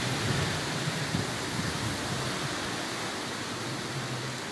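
Hurricane wind and heavy rain: a steady hiss of rain with a low, gusting rumble underneath.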